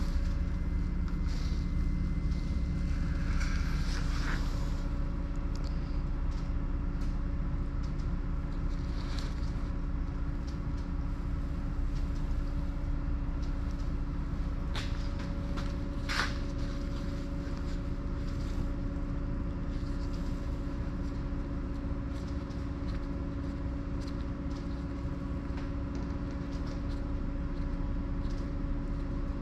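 Steady low mechanical rumble with a constant hum, like a machine or engine running, with a couple of faint clicks.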